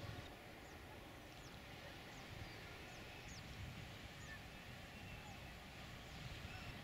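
Faint outdoor ambience: small birds give short, high chirps about once a second over a low wind rumble on the microphone.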